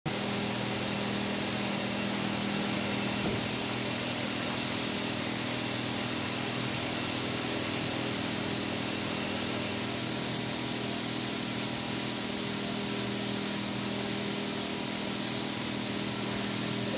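Steady mechanical drone with a low hum throughout. Over it come two short hissing bursts, about six and ten seconds in, as water is splashed onto the freshly cast hot aluminium in its sand mould.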